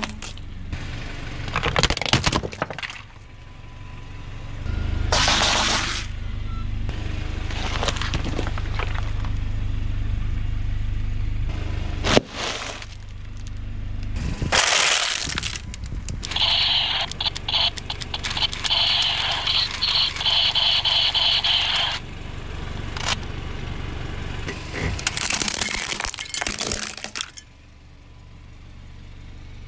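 A car tyre rolling slowly over objects and crushing them: repeated cracks, crunches and snaps of breaking fruit, a bagged snack and plastic toys over the car's low rumble. For about five seconds midway a rapidly pulsing high tone sounds over it.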